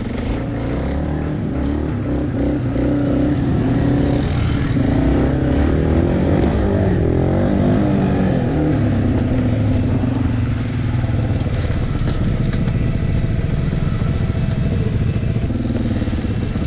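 ATV engine running under throttle, its pitch rising and falling as it speeds up and slows down, then running steadier in the second half.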